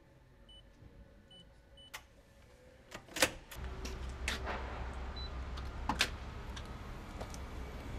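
Faint short electronic beeps from a door's chip-reader lock, then sharp clicks and knocks of the lock and door, the loudest about three seconds in. From about halfway a steady low rumble of outdoor street background runs underneath.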